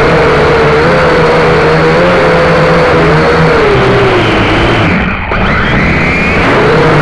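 Akaso X5C toy quadcopter's motors and propellers whining in flight, the pitch wavering up and down. The sound dips briefly about five seconds in.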